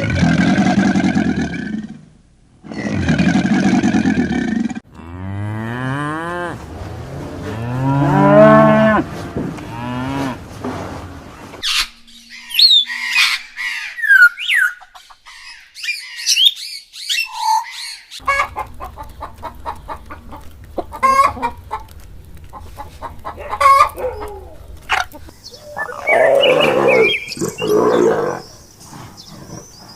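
A run of farm animal calls, cattle mooing and chickens: two long low calls at the start, a longer wavering call from about five seconds in, then high chirps and clucking with clicks through the second half.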